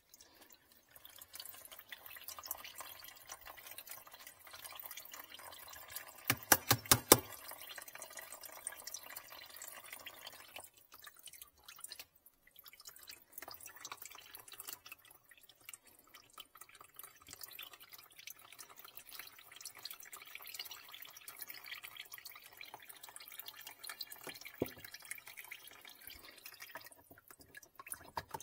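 Dirty water trickling and dripping out of a disconnected PVC drain fitting under a clogged kitchen sink into a plastic basin. A quick run of about five sharp clicks comes about six seconds in.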